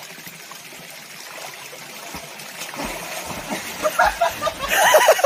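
Steady trickle of a mountain stream, with water sloshing and splashing as a man swims and wades in the pool. Voices call out near the end.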